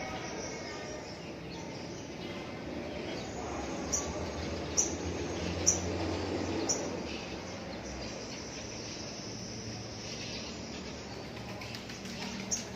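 A bird giving short, sharp high chirps, four about a second apart and one more near the end, over a steady background hiss.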